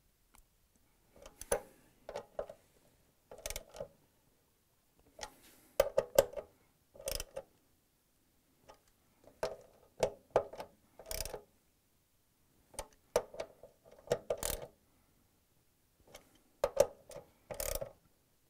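Socket-wrench ratchet clicking in a dozen or so short bursts of rapid clicks with brief pauses between, as the 10 mm bolts holding a washer's motor stator are tightened down.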